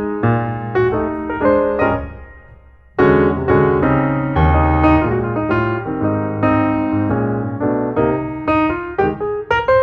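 Background piano music: chords and melody notes, fading out about two seconds in and starting again loudly a second later.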